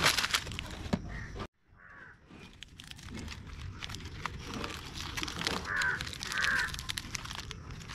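Plastic wafer-roll wrappers crinkling and rustling as the packets are handled and laid out, with a crow cawing a few times, two louder caws in quick succession about six seconds in. The sound drops out briefly about a second and a half in.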